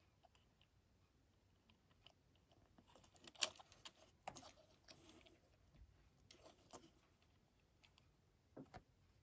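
Scattered light clicks and short rustles of small plastic items being handled, with the sharpest click about three and a half seconds in and a few more later.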